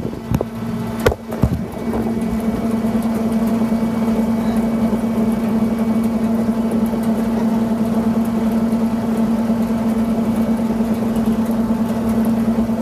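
A steady machine hum with one strong low tone and its overtones, unchanging throughout. A few sharp knocks in the first second and a half as the phone is set down.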